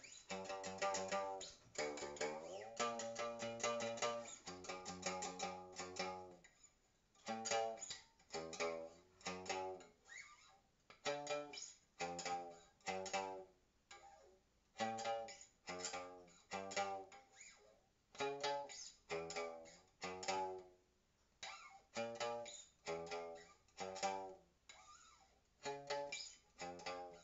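Homemade one-string diddley bow on a wooden plank being played. For the first few seconds the notes slide up and down in pitch. Then comes a slow run of single plucked notes at different pitches, each ringing and fading, with short pauses between groups.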